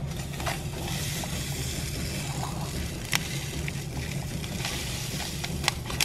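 Instant spiced cider powder pouring from a foil drink pouch into a cup: a steady soft hiss of the granules, with a few sharp crinkles of the pouch.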